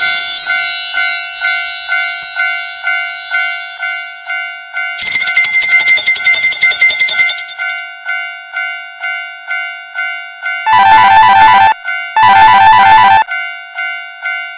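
Railroad crossing warning bell ringing steadily, about two strikes a second. Louder sound effects break in over it in the middle, and two short warbling blasts sound near the end.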